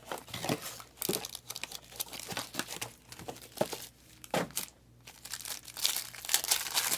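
Wrapper crinkling and tearing as a trading-card pack or box wrap is ripped open, in an irregular run of crackles and rips that is loudest near the end.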